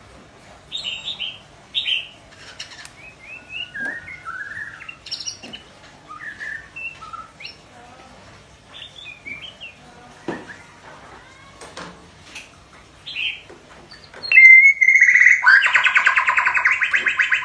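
Young white-rumped shama practising its song. First come scattered short whistles and chirps, then about fourteen seconds in a loud, fast, rattling trill that carries on.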